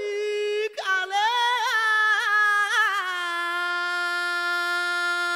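A woman's solo voice singing a wordless-sounding mourning lament with no accompaniment, ornamenting her notes with quick turns. After a short break for breath just under a second in, she holds one long, steady, lower note from about three seconds in.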